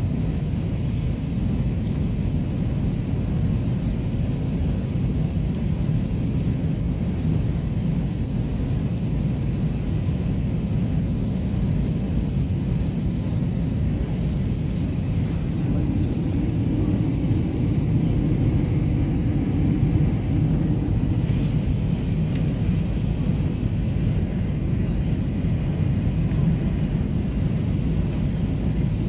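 Steady low rumble of engine and airflow noise inside a jet airliner's cabin as it descends to land, swelling a little in the middle.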